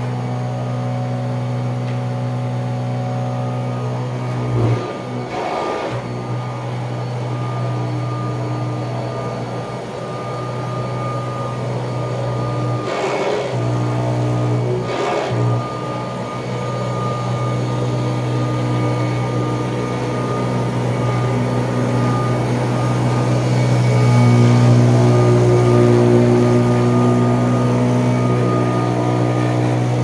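A 1979 Kirby upright vacuum cleaner running steadily while pushed over thick carpet, a constant motor hum with a few brief interruptions in it, getting louder in the last third as the machine comes closer.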